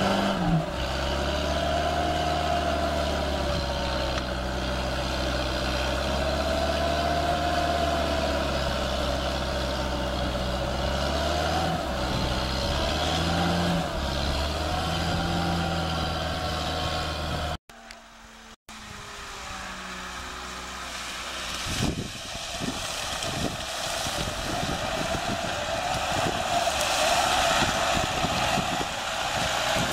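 4x4 off-road vehicle engine revving up and down, its pitch rising and falling, while stuck in a reed swamp. After a cut about 18 seconds in, a Lada Niva's engine runs harder and gets louder as it pushes through mud and reeds.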